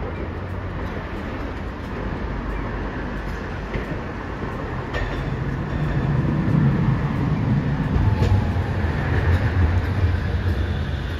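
Hiroden 800-series tram, car 808, pulling in to a street stop. Its low rolling rumble on the rails grows louder from about five seconds in.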